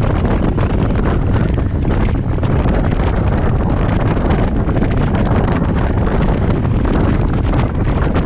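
Steady, loud wind rushing over a GoPro action camera's microphone from riding a motorcycle at speed.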